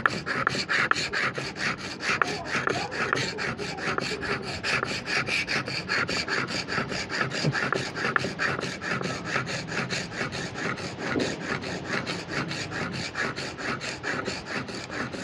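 Steel chisel blade being sharpened on a water-wetted carborundum oil stone: its bevel is rubbed back and forth in quick, even strokes, several a second.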